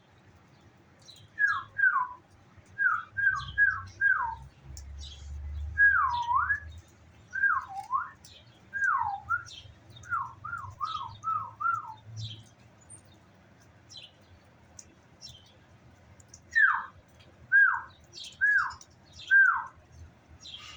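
A bird giving a series of clear, loud whistled notes, each sliding down in pitch. A few rise again at the end, and a quick run of short notes comes at about 10 to 12 seconds. The series pauses, then four more downslurred whistles come near the end, over faint high chirps from other birds.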